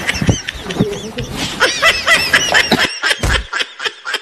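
Laughter in quick, high-pitched bursts that follows a joke's punchline, with a dull thump about three seconds in.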